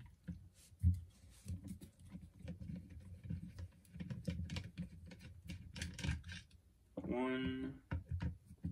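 Screwdriver turning out the screws of an Uzi's metal grip frame: scattered small metallic clicks and scrapes over low handling bumps.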